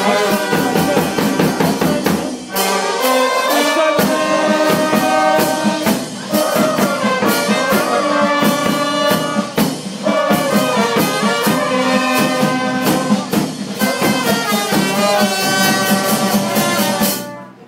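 A small brass band of trumpets and trombones playing a tune over a steady bass drum and clash cymbal beat, with short breaks between phrases. The music stops suddenly near the end.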